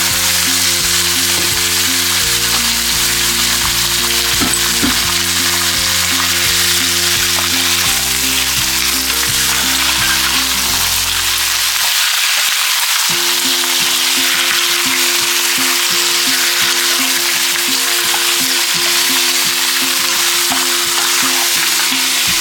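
Pieces of whole chicken frying in hot vegetable oil with ginger and garlic, a steady loud sizzle. Background music plays underneath, its lower part dropping out about halfway through.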